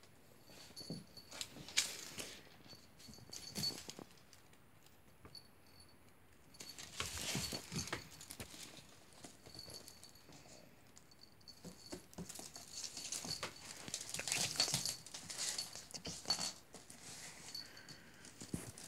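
Thin plastic flyer strapping strips rustling and skittering on a wooden floor as a cat bats and pounces on them, in irregular bursts of scuffling with a few sharp clicks.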